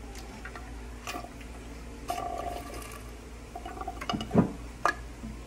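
Drink being sucked up through plastic straws from cups, with slurping and a few small knocks.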